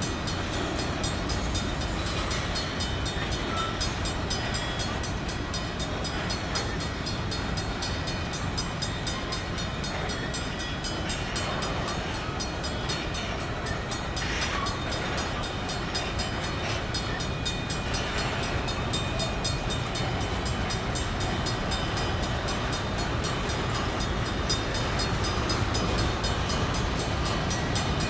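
Freight train of covered grain hopper cars rolling past: a steady, continuous noise of steel wheels on rail.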